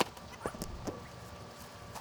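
Three footsteps on a rock and gravel surface, about half a second apart, in the first second.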